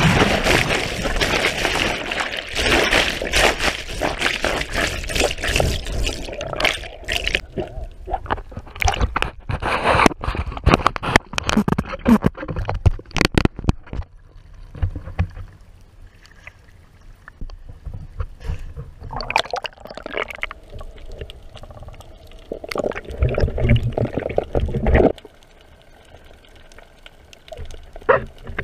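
Sea water sloshing and gurgling in irregular splashy bursts with many small knocks and clicks. It is busiest in the first half, then quieter with a few more bursts near the end.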